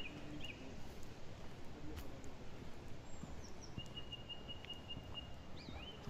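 Forest birds calling: a few short whistled notes at the start, a thin falling whistle about three seconds in, then a rapid, even run of high notes for about a second and a half, ending in two rising-and-falling whistles. Underneath are footsteps crunching on a gravel path.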